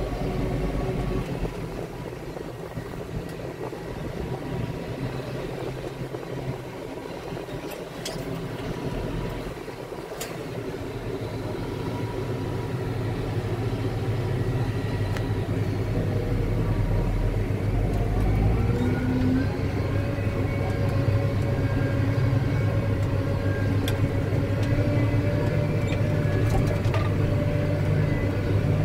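McCormick XTX 215 tractor engine running steadily, heard from inside the cab, a continuous low drone that grows louder about halfway through, with a brief rising tone a little past the middle.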